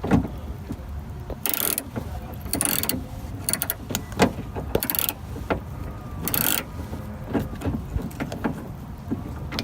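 Hand ratchet being worked on a door-handle screw inside a car door: short runs of rapid ratchet clicking, about five of them, with knocks and clinks of the tool against the door's inner metal between.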